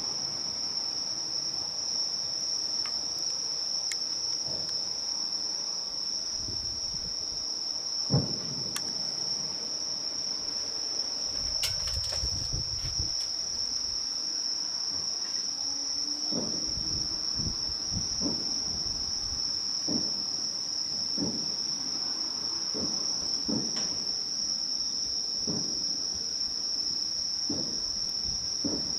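Steady high-pitched trill of crickets, with distant fireworks shells bursting as low thuds: one about eight seconds in, then a quick series of bursts, about one a second, through the second half.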